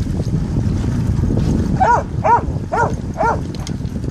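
Dog barking four times in a quick even series, about two barks a second, starting about two seconds in, over a steady low rumble.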